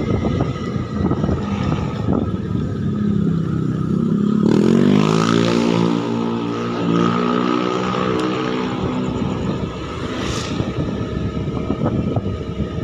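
Motorcycle running along with wind rumble on the microphone; about four seconds in the engine revs up, its pitch rising, then holds a steady drone for about five seconds. A brief rush of hiss comes after about ten seconds.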